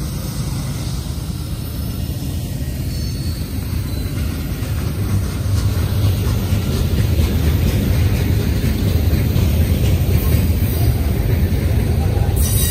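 Freight train's boxcars rolling past close by, a steady low rumble with clattering wheels on the rails. It grows louder from about halfway through as a mid-train Union Pacific diesel locomotive, working hard with its exhaust smoking, comes nearer.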